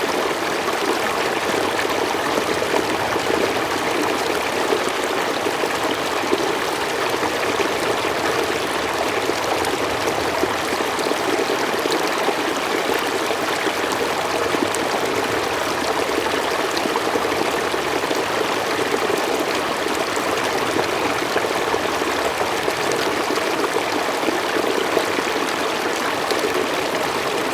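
Water flowing steadily over rocks, recorded close up: an even, continuous rush and babble of a stream.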